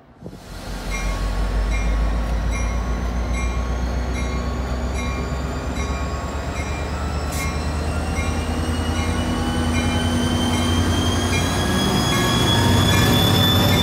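NJ Transit GP40PH-2B diesel-electric locomotive passing at close range: its diesel engine runs with a deep steady drone while a whine from the traction motors rises steadily in pitch as it gathers speed. Its bell rings about every two-thirds of a second, and the engine gets louder about twelve seconds in.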